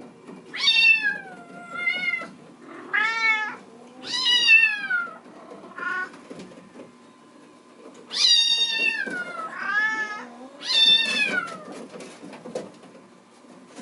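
Bengal kitten meowing loudly and over and over, about seven calls, most of them falling in pitch at the end: a kitten that wants to be let out of the room.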